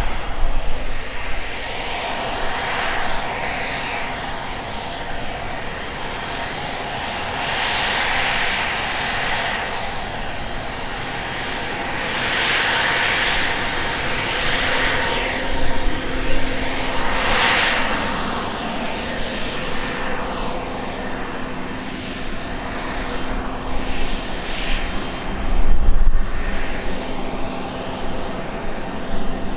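Cessna 680 Citation Sovereign's two Pratt & Whitney PW306C turbofans running at low power as the business jet taxis: a steady whine over a jet hiss that swells and fades several times.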